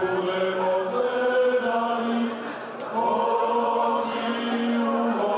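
Male klapa ensemble singing unaccompanied in close multi-part harmony, holding long chords. The voices drop back briefly for a breath between phrases about two and a half seconds in, then come in together again.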